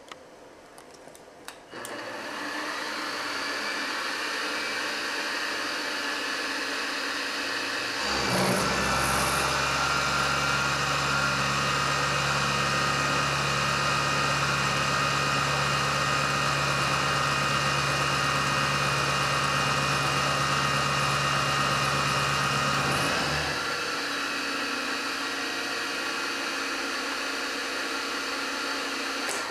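Grizzly G0704 mill's spindle spinning up to about 1100 RPM with a steady whine. About six seconds later the end mill feeds into aluminum at a 0.069-inch width of cut and 11 inches per minute, adding a louder low hum and steady tones for about fifteen seconds. The spindle then runs on alone and cuts off at the end.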